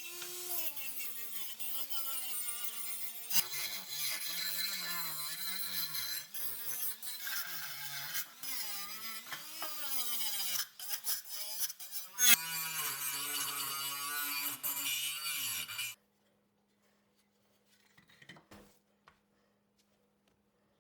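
Handheld power tool running, its motor pitch rising and falling as it is pressed against the work, with a loud hiss of grinding or brushing over it. It cuts off suddenly about 16 seconds in, leaving only a faint steady hum and a couple of small knocks.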